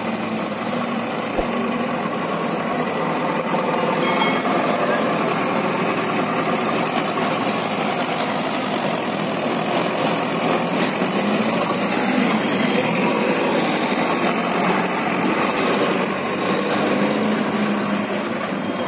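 Steady diesel engine noise from a Mahindra 575 DI tractor's four-cylinder engine pulling a loaded trolley, mixed with a JCB backhoe loader's engine running close by.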